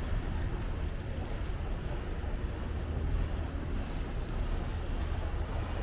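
Steady low rumble with an even wash of noise above it and no distinct events: a boat underway on the river.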